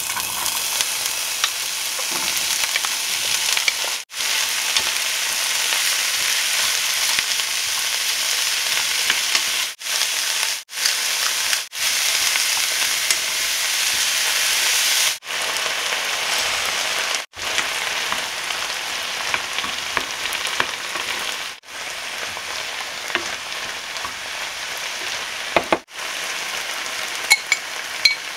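Diced mushrooms and bell peppers sizzling in hot olive oil in a frying pan, stirred with a wooden spatula. The steady sizzle breaks off briefly several times, and there are a few light clicks near the end.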